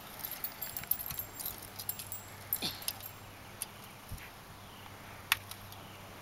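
Light metallic clinking and jingling of a fighter's mail and plate armour as it is handled and adjusted, with a few sharper clicks, the loudest about five seconds in.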